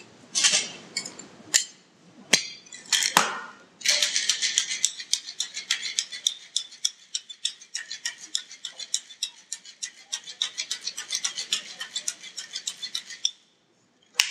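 Ice scooped into a metal cocktail shaker with a few sharp clinks, then from about four seconds in the shaker shaken hard, ice rattling fast and evenly for about nine seconds before stopping suddenly.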